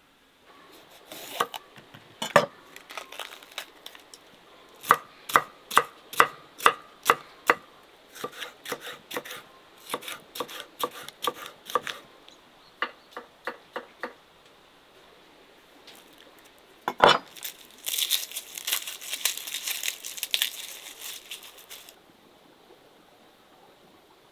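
Chef's knife chopping bell peppers on a wooden cutting board: a long run of sharp chops, at times two or three a second. About 17 seconds in comes one loud knock, then a few seconds of crackling from the wood fire under a black pot.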